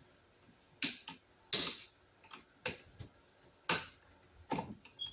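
A series of sharp, irregular knocks and clicks, about nine in five seconds, the loudest about one and a half seconds in.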